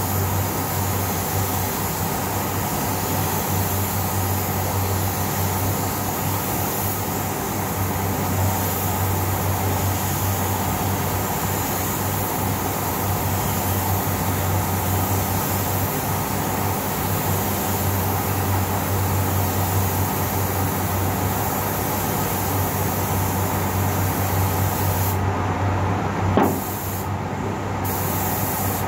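A compressed-air paint spray gun hisses steadily as paint is sprayed onto a car body, over a steady low hum from the spray booth's ventilation. Near the end the hiss cuts out twice for about a second as the trigger is let go, with a short sharp click between the two breaks.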